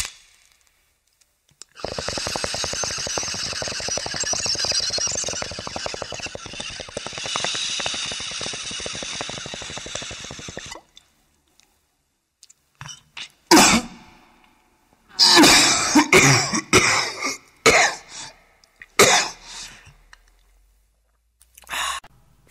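About nine seconds of dense crackling noise. After a short pause come a series of coughs and throat-clearing, irregular and each under half a second.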